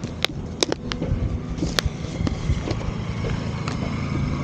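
A few sharp clicks and taps in the first two seconds, typical of a plastic food container being handled while food is tipped out for puppies, over a steady low rumble of wind and distant traffic.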